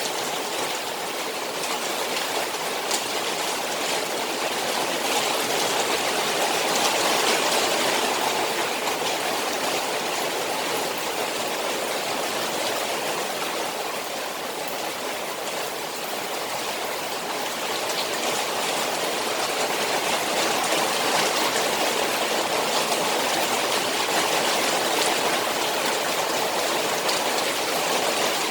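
Rain falling on a koi pond: a steady hiss of water with scattered drop ticks, swelling a little about a quarter of the way in and again in the second half.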